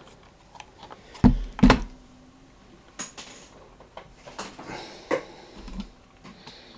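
Two solid knocks about a second in, then a few lighter clicks, as a hand-built Intellivision II joystick controller is handled and set down on the workbench.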